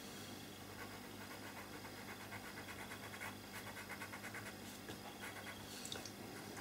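Black pastel pencil scratching on pastel paper in quick, evenly spaced short strokes as the pupil is filled in. The sound is faint.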